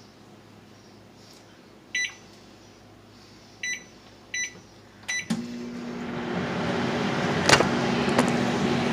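Microwave oven keypad beeping four times as the time is set and started, then the oven running with a steady hum and fan noise, with a sharp click about seven and a half seconds in.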